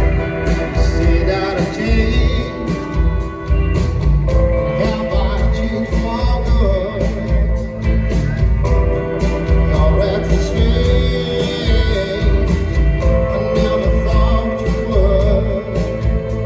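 Rock band playing live: a singer over drums with a steady beat, bass and guitar.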